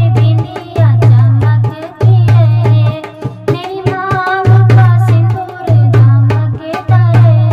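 Devotional Hindi bhajan: a high voice sings a wavering melody over hand-drum percussion with a steady beat and a deep pulse about once a second.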